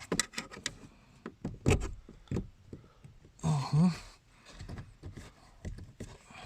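Hands working on a car's in-tank fuel pump fitting: scattered clicks, knocks and rubbing of plastic and metal parts, with a short grunt of effort about three and a half seconds in.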